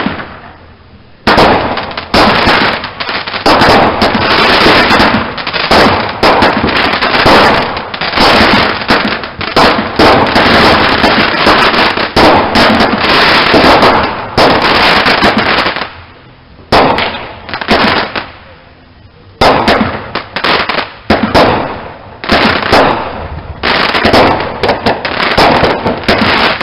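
Fireworks going off: a single bang, then a rapid, dense barrage of bangs and crackling lasting about fifteen seconds. This is followed by shorter volleys with brief pauses in between.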